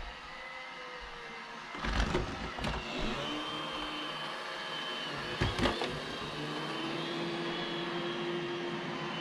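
iRobot Roomba j7 robot vacuum running, its motors giving a steady whine, with a few sharp knocks about two seconds and five and a half seconds in.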